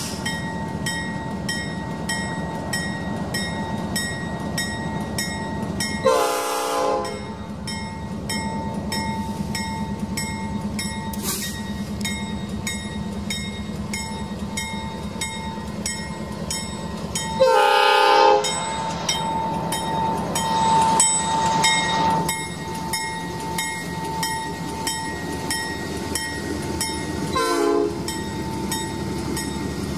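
CN diesel freight locomotives passing close by, engines running under a steadily ringing bell, with the multi-chime air horn sounding three times: about six seconds in, again near eighteen seconds (the loudest blast), and a shorter one near the end.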